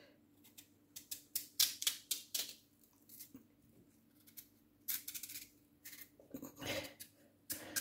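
Kitchen knife slicing a hard, raw peeled sweet potato into long strips held in the hand, making short, sharp cutting sounds in a few quick runs.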